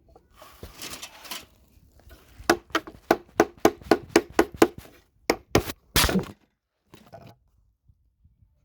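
Rapid blows, about four a second, from an improvised hammer striking a tool wedged under a motherboard's CPU socket to prise it off whole. They are followed by a few louder knocks and a longer clatter as the camera is knocked over.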